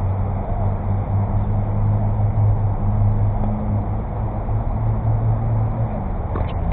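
A steady low mechanical hum with a couple of held low tones that shift about six seconds in, and a faint tennis ball strike on a racket near the end.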